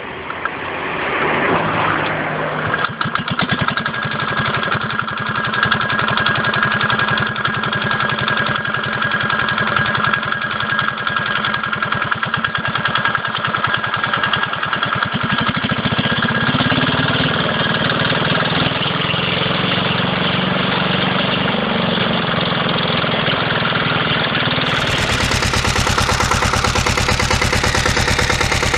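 A small diesel engine on a home-built bicycle-frame motorbike is started by hand and catches within about two seconds, then runs with a rapid, steady knocking beat. Near the end, a Sommer motorcycle's Hatz single-cylinder diesel idles with a deeper beat.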